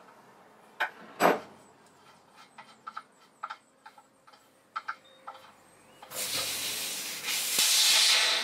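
Metal clicks and a knock from a ratchet and socket on the air compressor tank's brass check-valve fitting. Then, about six seconds in, a loud hiss of compressed air escaping from the tank as the fitting is unscrewed. The hiss gets louder about a second later and stops abruptly.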